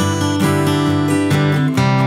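Background music: a strummed acoustic guitar playing chords at a steady pace.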